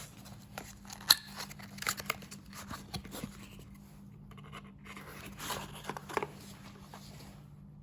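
Handling noise from a metal cam limit switch being turned over in the hands: scattered light clicks and rustles, the sharpest click about a second in, over a faint steady hum.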